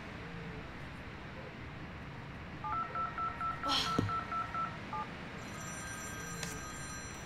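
ATM keypad beeping as keys are pressed: a quick run of about nine short, evenly spaced beeps lasting about two seconds, with a sharp click partway through.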